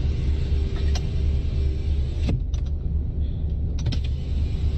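Steady low rumble inside a car cabin, with a few sharp clicks: one about a second in and others around two and a half and four seconds.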